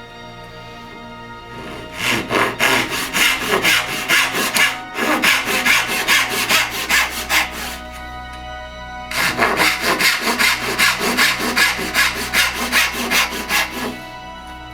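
Wood being sawn by hand with rapid back-and-forth strokes, in two bouts with a pause in the middle, over background music.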